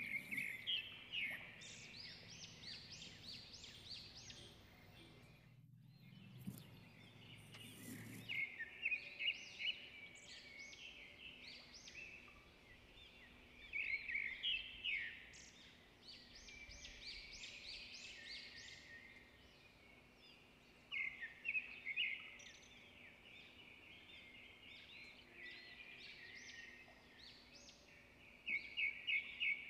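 Birds chirping faintly in short clusters every few seconds, with a faint low hum under them that stops about eight seconds in.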